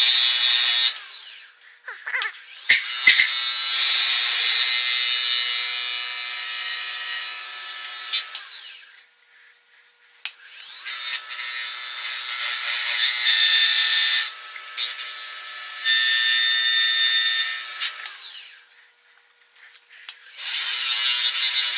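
A half-inch bowl gouge cutting a spinning elm burl and resin hybrid blank on a wood lathe, shaping a bead on the end. A steady cutting hiss over a pitched hum comes in three long stretches, broken by short pauses about 2, 9 and 19 seconds in.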